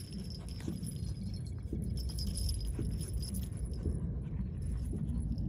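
Metal harness hardware jingling and clinking as two French bulldogs tug and wrestle over a rope, over a low steady rumble.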